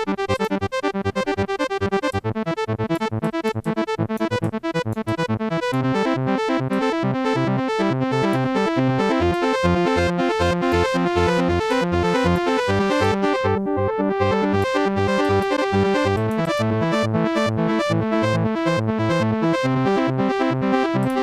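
Native Instruments Massive X software synthesizer playing a fast pattern of short, pitched notes that fills out into a fuller, more sustained sound after about six seconds.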